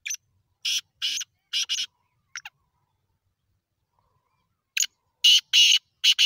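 Caged black francolin calling: two phrases of short, harsh, grating notes. The first has about six notes; the second, louder, starts a couple of seconds after the first ends and has about five.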